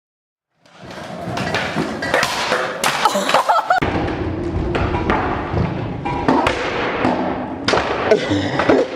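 Brief silence, then repeated heavy thuds and knocks over background music.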